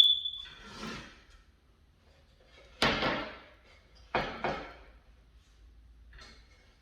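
A few separate knocks: a short click with a brief high ring at the start, a loud knock about three seconds in, and a quick double knock a second later, with a faint tap near the end.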